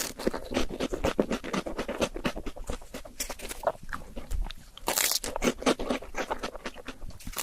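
Close-miked eating of fast-food desserts: crunchy bites and chewing, a rapid run of small crackling clicks, with a louder crunchy burst about five seconds in.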